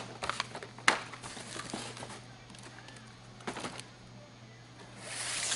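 Cardboard boxes and blister-packed slot cars being handled and shifted on a counter: a few scattered knocks and taps, the sharpest about a second in.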